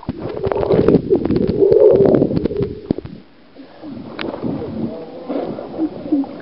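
Pool water splashing and rushing over a camera microphone held at the water's surface, muffled and full of clicks for about three seconds, then quieter gurgling and bubbling.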